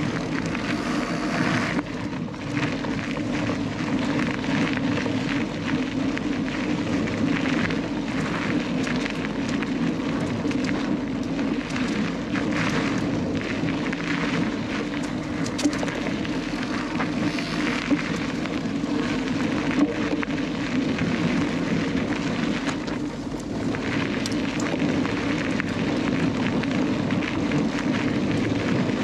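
Canyon Lux Trail cross-country mountain bike ridden along a forest singletrack: steady rushing noise of tyres on the dirt and wind on the onboard microphone, with scattered small knocks and rattles from the bike.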